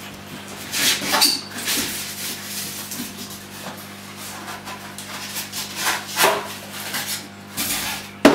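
Packaging being handled on a tiled floor during an unboxing: irregular bursts of rustling and rubbing, with a sharp knock near the end. A steady low hum runs underneath.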